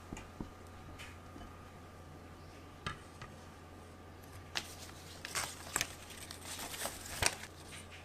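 Kitchen utensils handled against a bowl: a few light clicks, then a spell of scraping and tapping near the end, over a faint steady hum.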